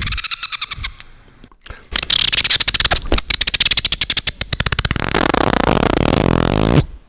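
Beatboxer's mouth-made sound effects: a short run of fast clicks, a pause, then a long rapid rattle of clicks that turns into a low buzz and cuts off suddenly near the end.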